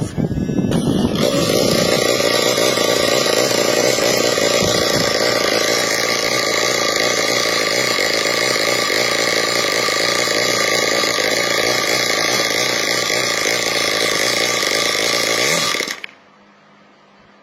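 Home-built single-cylinder engine running steadily, then cutting off abruptly near the end.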